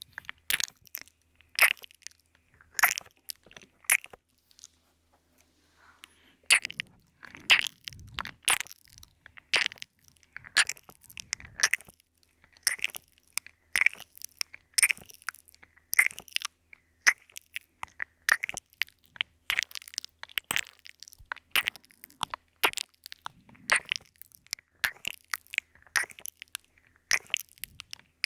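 Close-up crackling, crunching trigger sounds made right at a 3Dio binaural microphone, short and irregular, about one or two a second, with a short lull about five seconds in.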